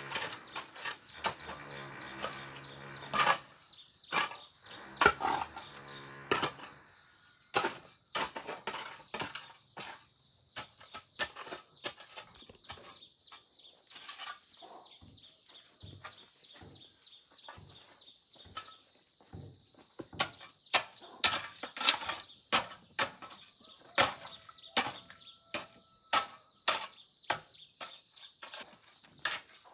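Irregular knocks and scrapes of a digging tool working mud and debris while a drainage ditch is being cleared, busiest in the second half. A steady high chirring of insects runs underneath.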